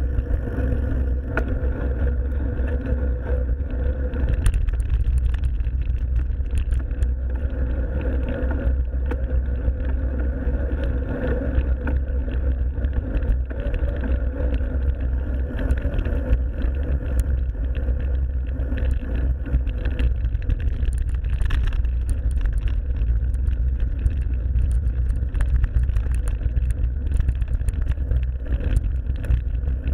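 Mountain bike ridden along a forest trail, heard from a bike-mounted or helmet action camera: a steady deep rumble of wind and tyres on the microphone, with frequent small rattles and clicks from the bike.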